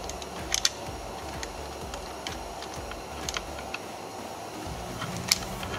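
Irregular light clicks and taps as the 10 mm airbag retaining bolt behind a Dodge Journey's steering wheel is worked loose by hand, a handful of separate clicks spread over a few seconds.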